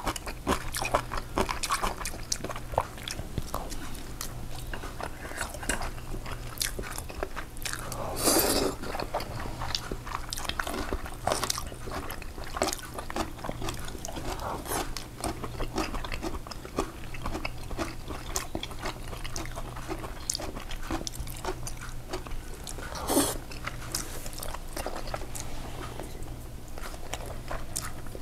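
Close-miked chewing and biting of Korean home-cooked food, with many small clicks throughout. Two louder, longer sounds come about a third of the way in and again near the end.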